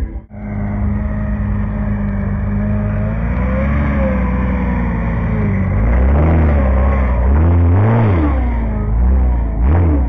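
Rock crawler buggy's engine revving under load as it climbs a steep dirt slope. It runs steadily at first, then rises and falls in repeated blips, loudest and quickest about six to eight seconds in.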